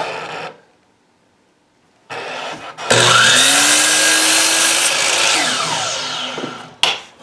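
Electric miter saw started about three seconds in, its motor whining up to speed as the blade cuts through a pine board, then winding down with a falling pitch. A click just before the end.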